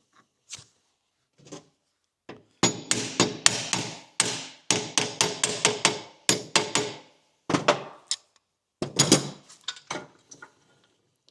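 Hammer striking metal parts of a jeep drive shaft: a series of quick, ringing blows in several bursts, starting a couple of seconds in and stopping about a second before the end.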